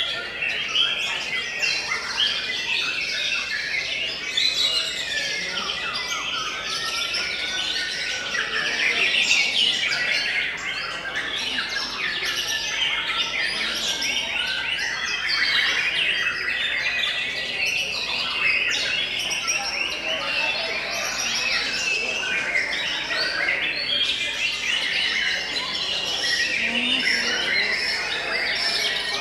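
White-rumped shamas singing at once: a dense, unbroken tangle of whistles, trills and chirps.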